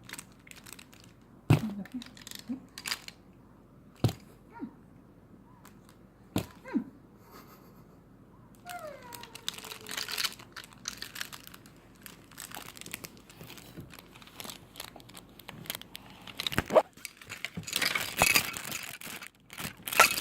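Crinkling and rustling, as of something being handled, with a few sharp clicks or knocks spread through and a short falling whine near the middle.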